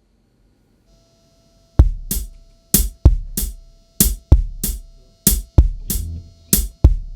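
A drum beat starts about two seconds in: a repeating pattern of heavy kick and snare hits opening a song, with a faint steady tone held underneath.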